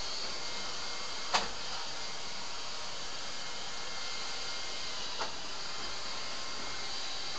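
Steady hiss of background noise with no speech, broken by a sharp click about a second in and a fainter click near five seconds.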